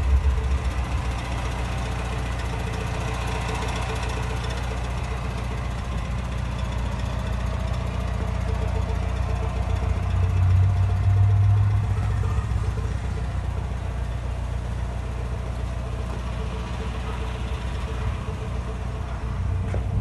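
A car engine idling steadily, swelling a little louder for a couple of seconds around the middle.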